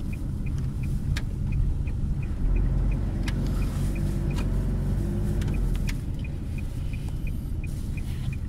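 Car driving slowly, heard from inside the cabin: a steady low engine and road rumble, with a faint high ticking about three times a second and a few light clicks over it.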